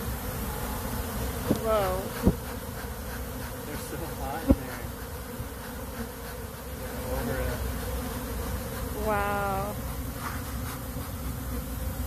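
Steady buzzing of a large mass of honey bees flying around comb that has been tipped out of a box. A few sharp knocks come about two and four and a half seconds in, and several short wavering calls stand out, the clearest about nine seconds in.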